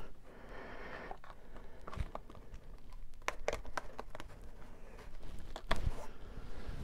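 Quiet crinkling and scattered small clicks from a plastic collector's binder page being handled while a medallion coin is pushed into a tight slot. A soft rustle comes first, then sharp ticks, with a few more together near the end.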